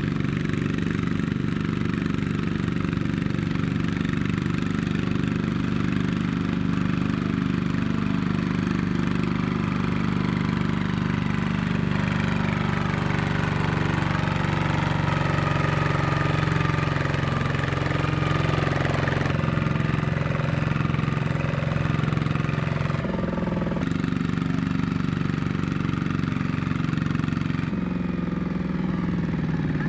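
Single-cylinder diesel engine of a two-wheel walking tractor running steadily under load, hauling a trailer of rice sacks through mud. Its pitch wavers in the middle, and its tone shifts abruptly twice near the end.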